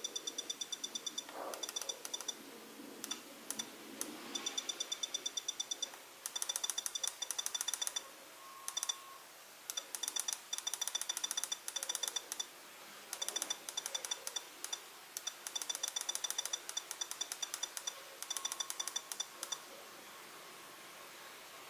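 FlySky FS-i6X radio transmitter beeping on each key press: rapid runs of short, high beeps as the up/down keys are pressed and held to step the throttle-curve values, broken by brief pauses.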